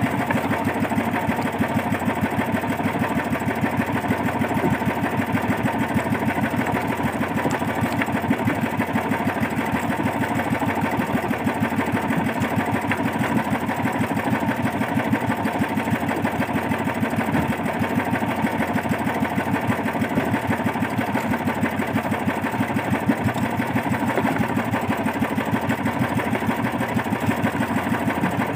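Small engine of a motorized outrigger fishing boat (bangka) running steadily at an even, rapid putter, unchanging throughout.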